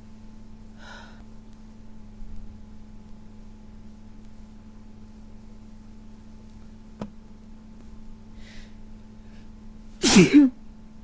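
A person sneezes once near the end, a loud burst in two quick parts.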